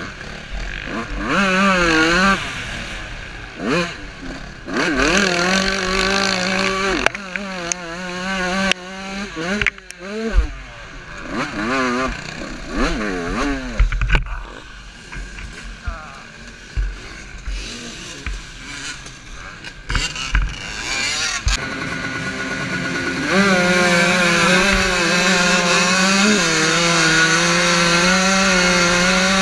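Motocross bike engine heard from the rider's helmet, revving up and dropping off again and again as the bike is ridden hard around the track. About halfway through it goes quieter and lower for several seconds, then from a little past two-thirds in it is held at high, steady revs.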